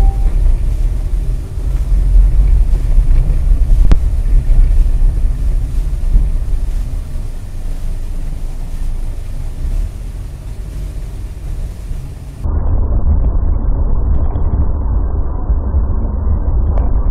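Steady low rumble of a car driving, its engine and road noise picked up by a dash camera inside the cabin, with a faint click about four seconds in. About twelve seconds in the sound switches abruptly to a louder, duller rumble from another car's dash camera.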